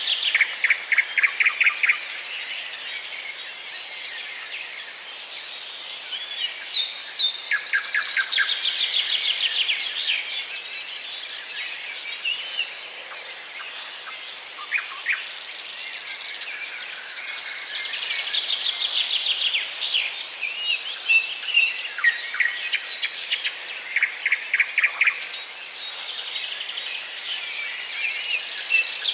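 Small songbirds singing: a rapid trilling phrase comes about every ten seconds, with scattered chirps and short calls between, over a steady background hiss.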